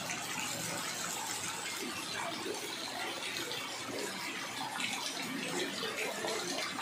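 Rain falling steadily onto standing floodwater in a street: an even, constant hiss of drops hitting the water.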